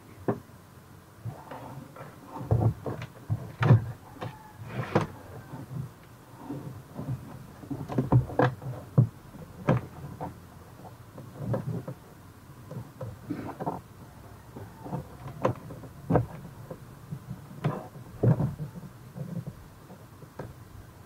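Irregular knocks, clicks and scrapes of handling as an amplifier board and its back panel are fitted into a speaker cabinet and pressed into place.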